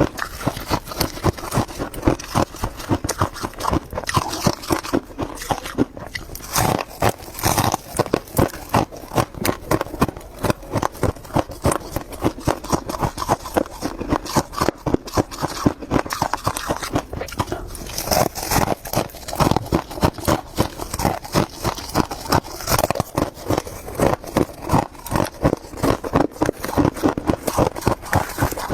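Freezer frost being chewed close to the microphone: steady crunching, two or three crunches a second.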